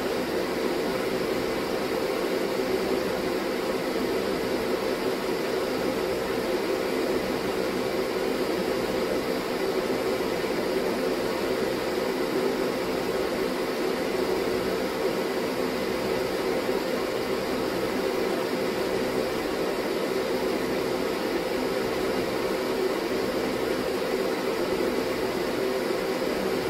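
Workbench ventilation fan running steadily: an even rushing noise with a low hum under it.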